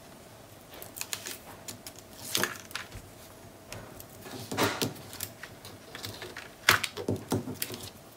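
Paper and cardstock being handled and pressed into place on a cutting mat: irregular rustling and short taps and clicks, with a few sharper clicks, the loudest a little under seven seconds in.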